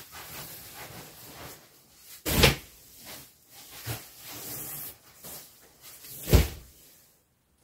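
Down sleeping bags being shoved and handled, their fabric shells rustling, with two loud soft thuds about two seconds in and about six seconds in as a bulky bag is heaved up and tossed aside.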